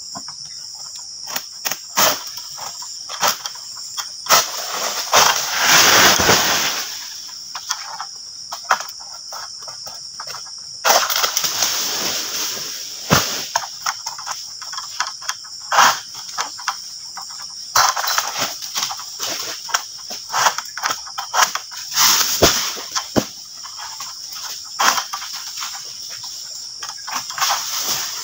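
Palm King Pro egrek, a sickle on a long pole, cutting oil palm fronds overhead: repeated sharp cracks and knocks of the blade biting and the pole working, with a few longer rustling crashes of cut fronds coming down, the biggest about five to seven seconds in. A steady insect chorus drones underneath.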